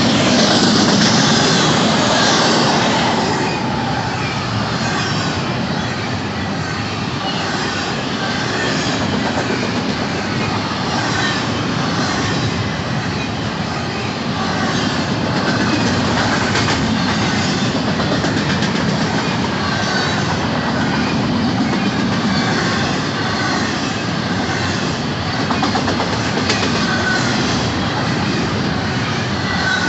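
Union Pacific intermodal freight train rolling past: a steady rush of steel wheels on rail with a regular clickety-clack over the rail joints and some wheel squeal.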